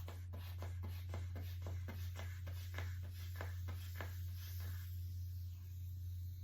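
Manual blood-pressure cuff being worked during a blood-pressure reading: a quick run of scratchy clicks, about four a second, that stops near the end. A steady low hum underlies it.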